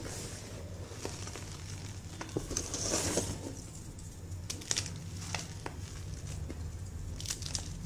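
Reformed gym chalk crumbling and crunching in the fingers while loose chalk powder rustles under the hands. There is a louder gritty crunch about three seconds in, and crisp crackles and clicks follow as pieces break apart near the end.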